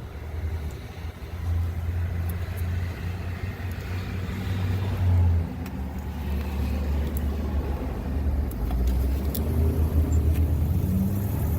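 Ford 5.4-liter V8 turning over and running unevenly as the crankshaft position sensor harness is tugged, surging and dropping. The broken wiring in the sensor circuit lets the engine run or die depending on how the harness is pulled.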